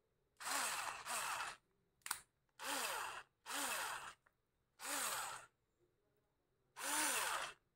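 Small 3.6 V cordless screwdriver with a drill bit in its chuck, its motor and gearbox whirring in six short trigger bursts, each spinning up and winding straight back down. A small click comes about two seconds in.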